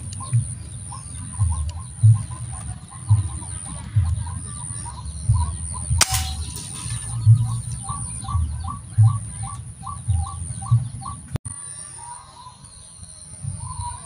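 White-breasted waterhen calling, a long run of short calls repeated about two a second that stops a little before the end. A steady high whine runs underneath, and a single sharp click comes about six seconds in.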